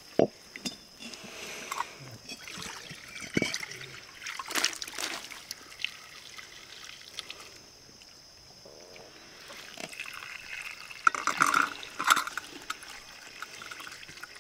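Water trickling and splashing, with scattered knocks and clicks, quieter for a few seconds in the middle.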